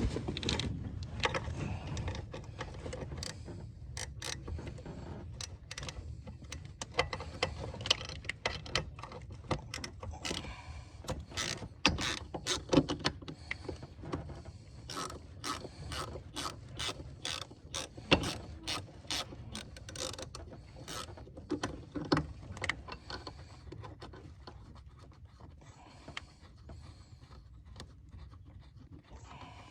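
Ratchet wrench clicking in runs while nuts are backed off, with sharp metallic clicks that come about three a second for stretches and grow fainter near the end.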